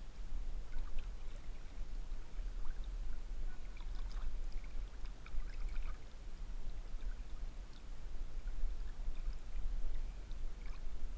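River water lapping and trickling at a camera held at the surface while swimming, with scattered small splashes and drips, busiest about four to six seconds in, over a steady low rumble.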